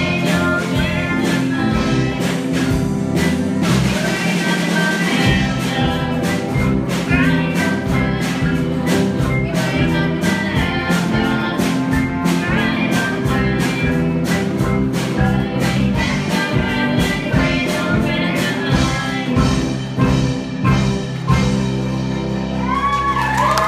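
Live band music: several women singing together into microphones, backed by keyboard and guitar, with a steady beat.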